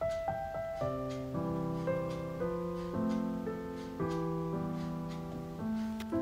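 Background music: piano-like keyboard notes over sustained chords that change about every half second to a second.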